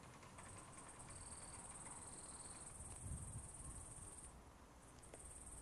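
Faint, steady high-pitched insect trill, breaking off about three-quarters of the way through and starting again near the end, over a low rumble.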